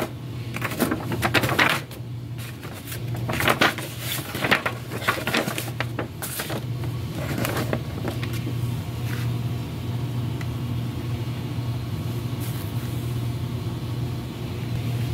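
Paper rustling and crinkling in repeated bursts as a large folded paper novelty bill is unfolded and pressed flat by hand, dying away about halfway through. A steady low hum runs underneath.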